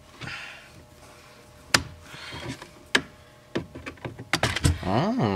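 Two sharp clicks from work on a car's steering column, then a pitched sound near the end that glides down and back up.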